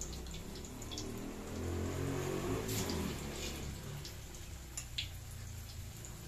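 Battered chicken pieces deep-frying in hot oil in a wok, sizzling with scattered pops and crackles. A low rumble swells and fades in the middle.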